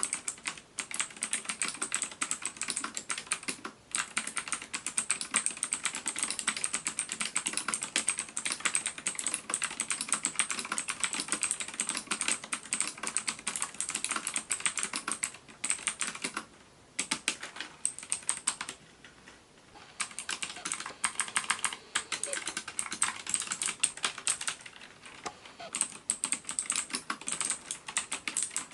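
Lutis Lunatic K803 keyboard with Outemu optical switches being typed on: a fast, continuous run of keystroke clicks, broken by a few short pauses a little past the middle.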